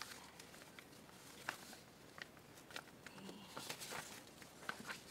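Thin paper shopping bag being handled and turned over: faint paper rustles and light taps scattered through.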